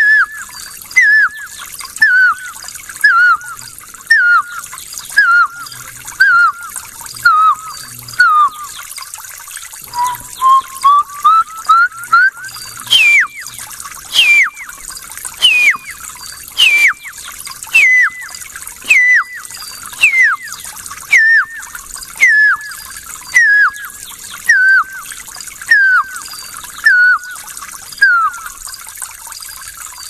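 A man whistling an imitation of a Tanzanian bird call: a long series of short whistled notes, each sliding downward, about one a second. About halfway through, one note rises slowly, and after it the notes start higher and drop more sharply.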